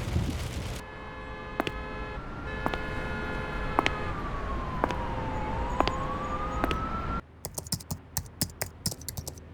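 Designed sound effects from Krotos Studio: a siren wailing slowly up and down over a steady tone that switches on and off, punctuated by single sharp clicks. Near the end it cuts to a quick run of sharp clicks.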